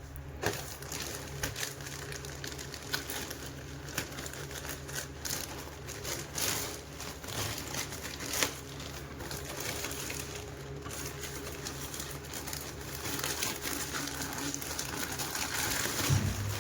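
Plastic packaging crinkling and rustling as it is handled and opened, with scattered sharp clicks, over a steady low hum.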